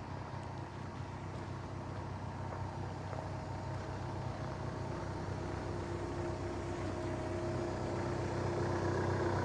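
A machine's engine running steadily at an even speed, slowly growing louder.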